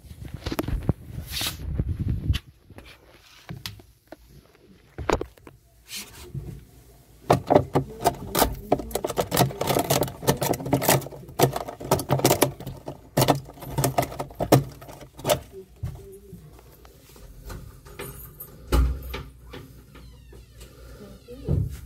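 Termite-damaged paint and wood at the base of a cabinet being picked and peeled away by hand, breaking off with irregular crackling and snapping that is densest in the middle. A couple of dull knocks come near the end.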